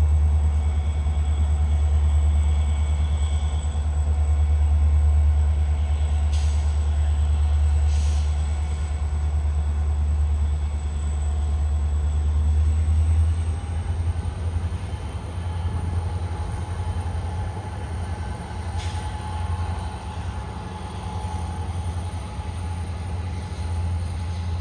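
Diesel freight locomotive approaching: a deep, steady low rumble that eases a little about halfway through, when a thin steady whine joins in.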